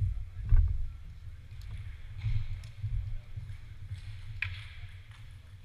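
Sports-hall ambience: a low steady rumble with a few scattered sharp clicks of a plastic table tennis ball bouncing, the loudest about half a second in and another a little over four seconds in.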